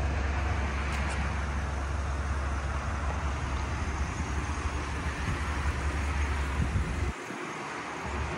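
Chevrolet Suburban running at idle, a steady engine noise with a strong low rumble that drops away abruptly about seven seconds in.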